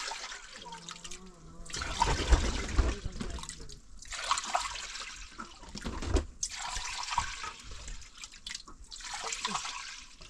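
Water running and splashing in several stretches of a second or two each, with pauses between.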